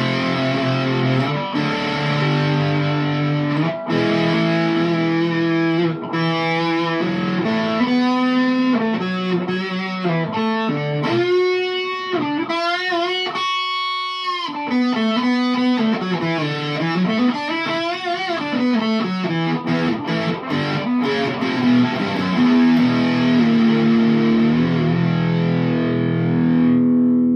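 Heavily distorted electric guitar: a Chapman ML1 Pro Hybrid on its Seymour Duncan Pearly Gates bridge humbucker, through a Boss DS-2 Turbo Distortion set to full into a Boss Katana amp. Sustained chords, then a lead line with string bends and vibrato around the middle, then chords again ending on a held chord.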